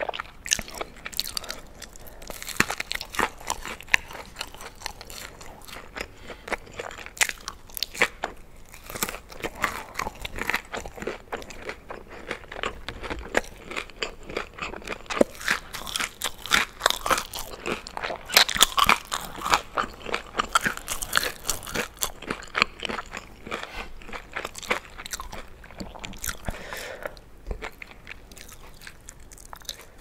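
Loud, close-up chewing of a breaded fried chicken piece: a dense run of crisp crunches and crackles from the coating, busiest around the middle and thinning out toward the end.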